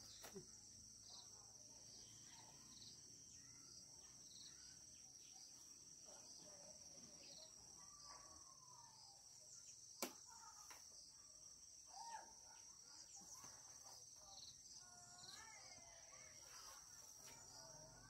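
Faint, steady high-pitched drone of insects, with a few faint wavering calls, mostly near the end, and a single sharp click about ten seconds in.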